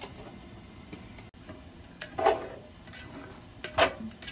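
A spoon stirring rice and water in a metal cooking pot. It scrapes and knocks against the pot in two short spells, about two seconds in and near the end, with a brief metallic ring.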